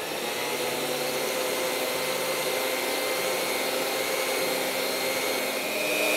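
Sunbeam electric hand mixer running steadily, its beaters whipping chilled heavy cream in a glass bowl: a continuous motor whirr with a steady whine, slightly louder near the end.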